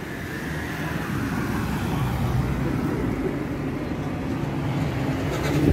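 Street traffic: a motor vehicle's engine running as it passes, slowly growing louder, with a short knock near the end.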